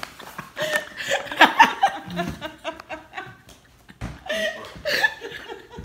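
People laughing, in two bursts: one from about half a second to two and a half seconds in, and another around four to five seconds in.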